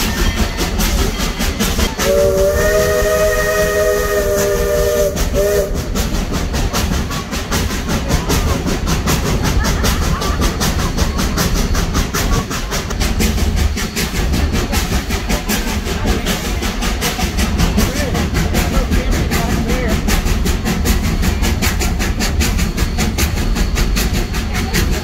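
Steam locomotive's chime whistle blowing one chord of several notes for about three and a half seconds, a couple of seconds in. Under it and after it, the steady rumble and rattle of the moving train, with rapid clicking from the wheels and cars.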